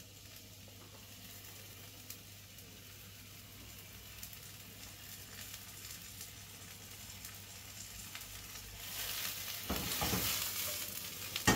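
Chanterelle mushrooms frying in olive oil in a wok: a faint sizzle that grows louder about nine seconds in. A sharp knock near the end.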